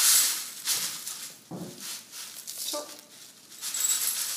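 Dry rolled oats pouring from a bag into a small stainless steel measuring cup, a rustling, pattering hiss with the bag crinkling. It is loudest at the start and again near the end.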